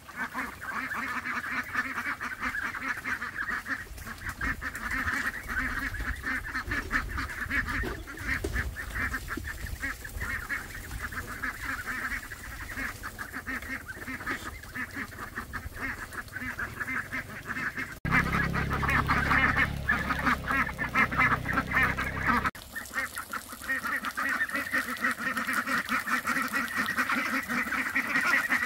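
A large flock of domestic fowl calling nonstop, many calls overlapping. For a few seconds past the middle a low rumble runs underneath.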